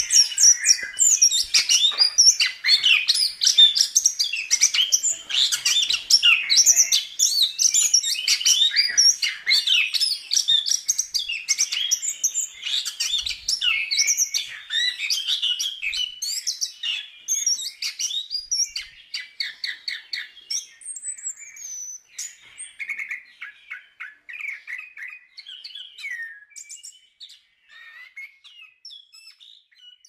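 Chestnut-capped thrush (anis kembang) singing a rapid, varied song of high chirps and whistles. It is dense and loud for the first twenty seconds or so, then thins out and fades toward the end.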